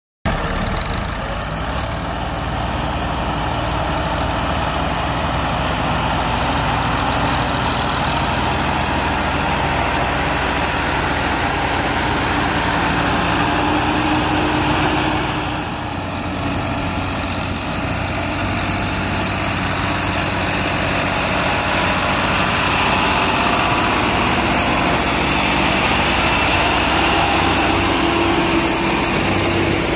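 Diesel farm tractor engines running steadily under load while pulling heavily loaded sugarcane trolleys. The sound dips briefly about halfway through.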